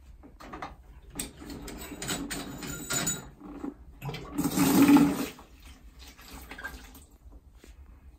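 Central heating system water draining out of a Fernox Omega filter's drain-off into a plastic bucket, pouring and splashing: a first spell a second or so in, then a louder gush about four to five seconds in, easing off after. This is the filter being drained down before it is removed.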